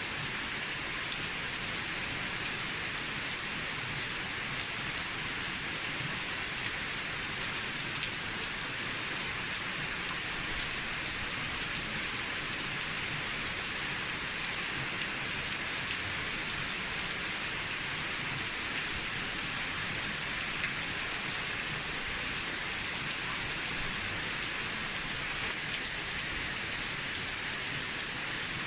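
Steady rain falling on an old moss-covered rooftop: an even hiss of many drops, with now and then a single louder drop.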